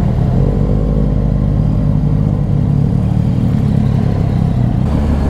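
Triumph Street Triple 660 S motorcycle's three-cylinder engine with a full Scorpion exhaust, running steadily at low revs.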